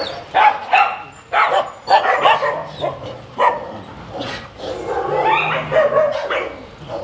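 Many dogs barking at once, a dense overlapping chorus of barks with no pause.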